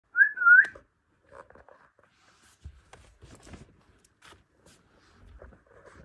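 Budgerigars: one short, loud whistled call that wavers up and down at the very start, then faint soft chirps and small clicks.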